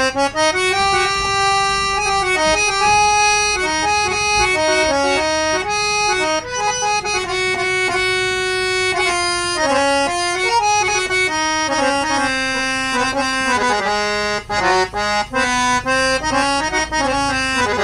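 Vertical harmonium with old Palitana reeds being played: a melody of held notes over sustained chord tones, the reeds sounding bright and full of overtones, with a few brief breaks between phrases.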